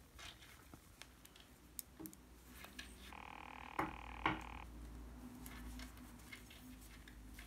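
Faint clicks and taps of metal knitting needles working garter stitch, with two sharper clicks about four seconds in. A brief steady tone of several pitches sounds from about three seconds in, over a low hum.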